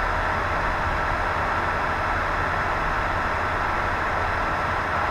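A steady, unchanging machine-like drone with hiss and a faint high whine on top.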